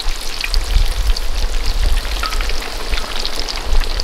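Chicken wings deep-frying in a large wok of oil: a dense, steady crackling sizzle, with a low rumble underneath.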